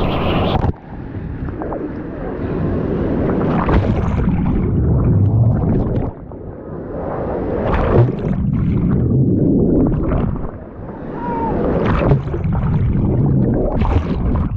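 Wave pool waves churning around the microphone, a muffled low rumble that swells and drops away every four to five seconds as the waves pass.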